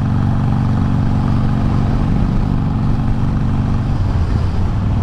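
Harley-Davidson Iron 883's air-cooled V-twin running steadily while the motorcycle is ridden at an even pace.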